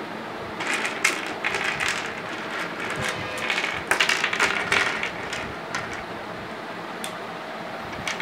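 Plastic flower-shaped building blocks clicking and clattering as they are handled and joined together, busiest in the first half and quieter near the end.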